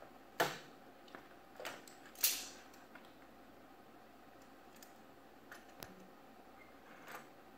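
A few faint, scattered clicks and knocks from a welding gun, its cable and metal on a workbench being handled, with one brief hiss about two seconds in.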